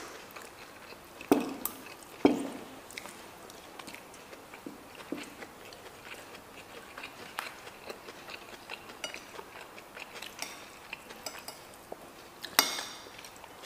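People eating: a metal spoon clinking and scraping on a plate, with soft chewing in between. Sharp clinks stand out about a second in, just after two seconds, and near the end.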